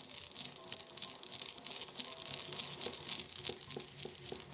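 Sesame seeds being ground with a stone pestle in a stone mortar: a steady gritty crackling of crushing strokes that stops abruptly near the end.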